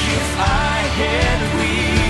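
Pop ballad playing: a sung vocal line of gliding, wavering notes, held longer near the end, over full band accompaniment.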